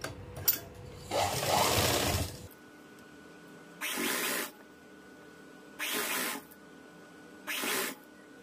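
Shanti sewing machine stitching in short start-stop runs: one longer run about a second in, then three brief runs about every two seconds. It is topstitching the folded bias-cut strip along a curved kurti neckline.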